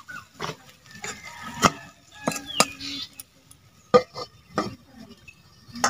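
A steel spatula knocking against an iron kadai, then an aluminium lid being set on the pan: a string of separate metal clanks and clinks, some with a short ring.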